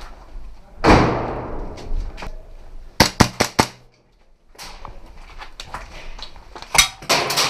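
Airsoft gunfire and impacts in a small room: a loud knock about a second in, then a quick string of about five sharp cracks around three seconds in, and a few more cracks near the end.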